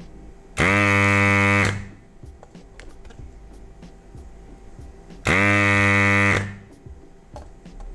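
Electric desoldering gun's vacuum pump buzzing in two short bursts of about a second each, a few seconds apart: each burst is the suction pulling molten solder off a stepper motor's pins on a circuit board.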